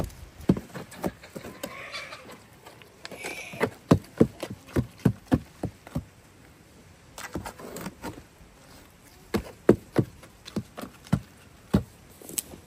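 A run of short, sharp crunches and knocks, several a second at times: goats tearing at grass, then a long-handled tool chopping and working wet clay-and-straw mix in a wheelbarrow.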